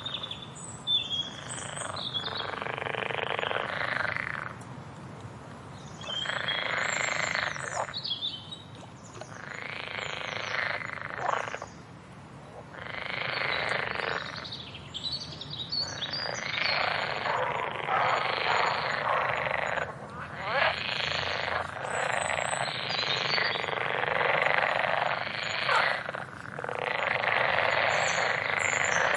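A chorus of frogs calling: long raspy trilling calls of about two seconds each, repeating with short gaps and running almost together in the second half. Faint short high chirps sound above them.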